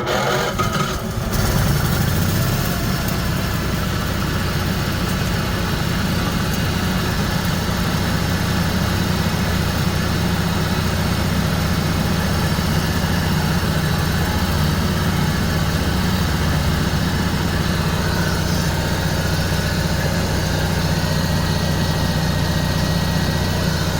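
RV's Onan generator catching in the first second or so, then running steadily while still cold.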